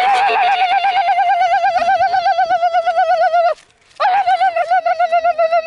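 A loud, warbling pitched tone sounds twice: one long blast of about three and a half seconds, then after a short break a second blast of about two seconds.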